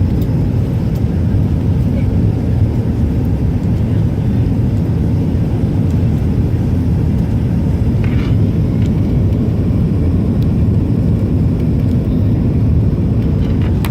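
Steady low rumble of an airliner cabin in flight or on approach: engine and airflow noise at an even level, with a faint brief clatter about eight seconds in.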